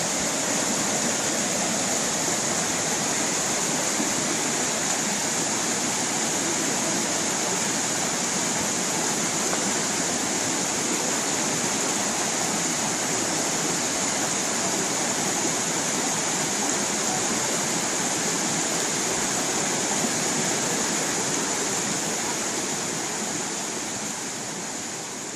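Tropical forest stream running steadily, water rushing and splashing over its bed; the sound fades out near the end.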